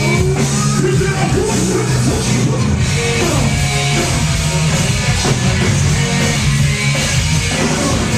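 Live rock band playing loudly through a concert PA, with electric guitars, a steady bass line and a voice singing over it.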